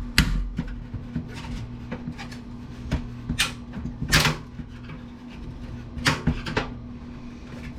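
Irregular sharp plastic-and-metal clicks and knocks as a clip-mounted case fan is pried and pulled off a desktop computer's sheet-metal case, which does not come away cleanly. A steady low hum runs underneath.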